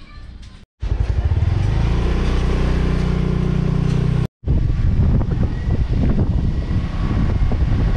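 Small motorcycle engine running under way, with a steady low note and road noise. It cuts in abruptly about a second in and drops out briefly about four seconds in.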